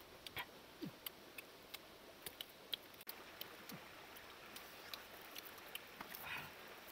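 Small, irregular crackling clicks of salak (snake fruit) being peeled and eaten by hand, over a faint steady hiss of a stream.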